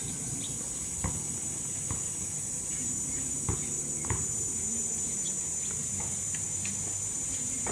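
Steady high-pitched insect chorus, with a few faint knocks scattered through it.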